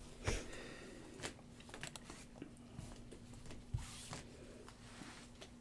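Faint rustling and scattered light clicks as trading cards and wrappers are handled with gloved hands, over a faint steady hum.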